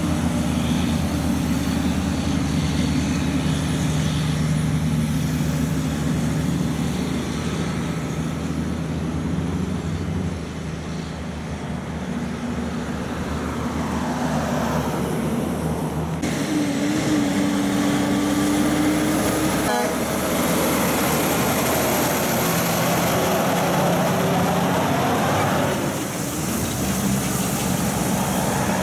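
Diesel engines of loaded logging trucks and trailers running as they pass and pull away, a steady low hum with its note shifting about halfway through, mixed with tyre noise from cars passing on the wet road.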